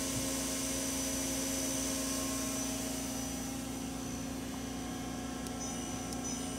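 Daewoo Puma TT2000SY CNC lathe spindle running steadily at about 1100 RPM: an even whir with a constant low hum and a high-pitched whine.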